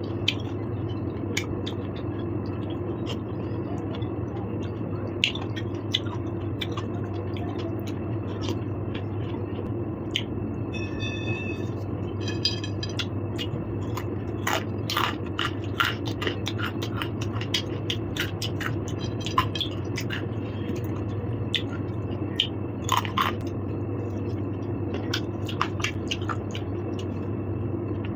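Close-up eating sounds: irregular sharp clicks and scrapes of a spoon against a plate, with chewing, over a steady low hum. Twice, a bit before the middle, a brief ringing clink.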